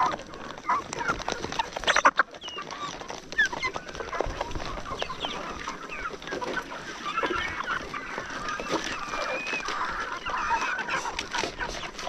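A flock of brown hens clucking and calling with many short, overlapping high calls while they crowd around a feed bowl, pecking. A few sharp knocks sound about two seconds in.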